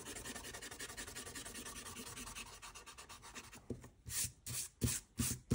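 Eraser rubbing out pencil lines on paper: quick, light scrubbing at first, changing about three and a half seconds in to louder back-and-forth strokes, about three a second.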